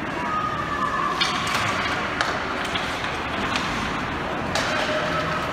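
Ice hockey rink sounds during play: a steady arena din with scattered sharp clacks, typical of sticks and puck, and a faint wavering tone near the start and again near the end.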